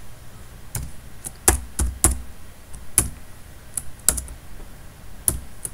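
Slow, irregular typing on a computer keyboard: about a dozen single key clicks a fraction of a second to a second apart, a few struck harder than the rest.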